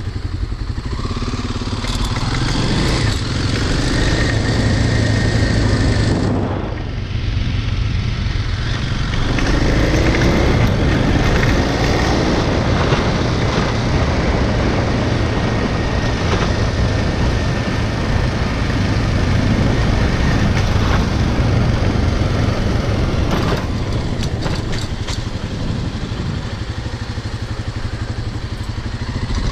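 Kawasaki dirt bike engine running as the bike is ridden, easing off briefly about six seconds in and picking up again about three seconds later.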